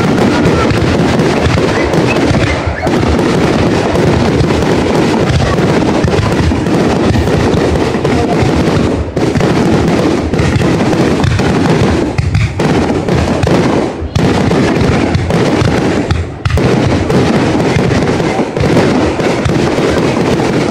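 Aerial fireworks display: a dense, continuous barrage of bursts and crackling, with only a few brief lulls.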